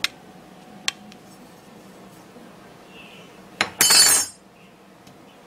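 A metal knife clicking against a plate and the melted disc, two small taps in the first second and then a loud, bright half-second scrape about three and a half seconds in.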